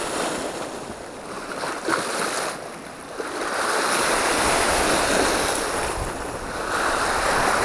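Small sea waves washing and splashing over the rocks at the water's edge, swelling louder in the second half.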